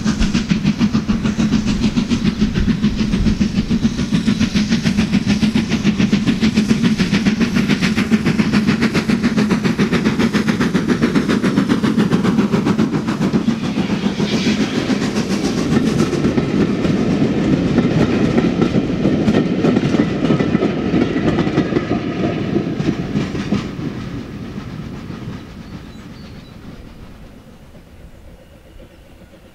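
BR Standard Class 4MT tank locomotive working a passenger train past at close range, its steam exhaust beating under a heavy plume, then its coaches rolling by on the track. The sound fades away over the last few seconds as the train draws off.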